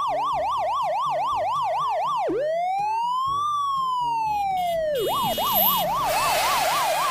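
Electronic police siren, switching from a fast yelp to one slow rising-and-falling wail and back to the yelp. A hiss joins in near the end.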